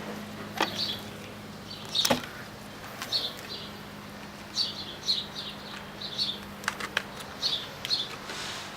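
A small bird chirping repeatedly in short, high chirps, with a few sharp clicks from handling the taillight bulb.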